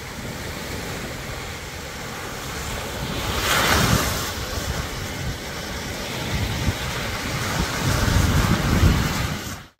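Small waves breaking and washing up a sandy shore, with a louder wave crashing at the water's edge about three to four seconds in, and wind buffeting the microphone. The sound cuts off suddenly just before the end.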